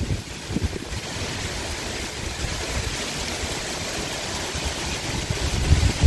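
Rain falling steadily during a summer thunderstorm, an even hiss. Near the end, wind gusts buffet the microphone with low rumbling bursts.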